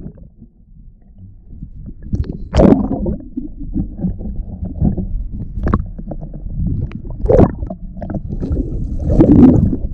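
Water sloshing and splashing around a boat, over a steady low rumble, with louder splashes about two and a half, seven and a half and nine seconds in.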